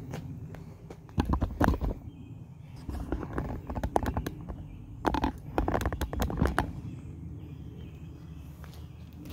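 Footsteps and shoe scuffs on a concrete floor, in three short bursts.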